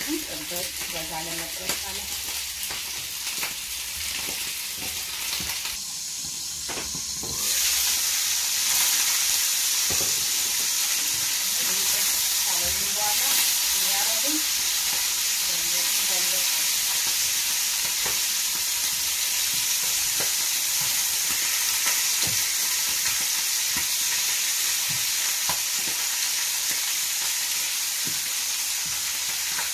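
Lamb ribs sizzling as they sear in hot oil in a frying pan, with scattered clicks of metal tongs turning the pieces. The sizzle grows louder about seven seconds in.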